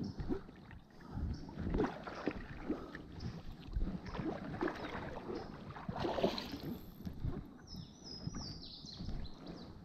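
Creek water sloshing and splashing close by, with irregular knocks and bumps. Near the end a bird sings a short run of descending high notes.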